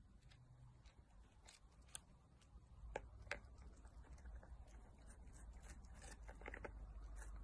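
Faint, scattered small clicks and crinkles as a kitten licks at a squeeze-tube treat in its plastic sachet.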